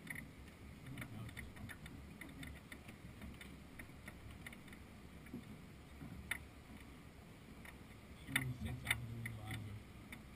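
Faint, irregular small clicks and taps from a sailing yacht's lines and deck fittings as a crewman handles the ropes, with a louder cluster of knocks and a brief low hum about eight seconds in.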